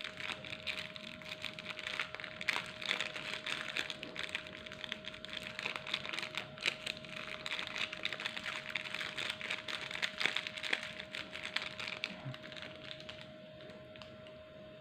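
Plastic bag of cornstarch crinkling and rustling as it is squeezed and shaken over chicken pieces, a dense run of small crackles that thins out near the end.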